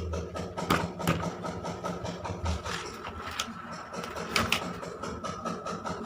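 Machine running with a steady hum, with irregular clicks and knocks over it.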